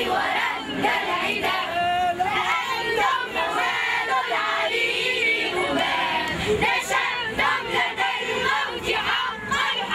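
A group of children, joined by some adult voices, singing a chant-like song together in unison.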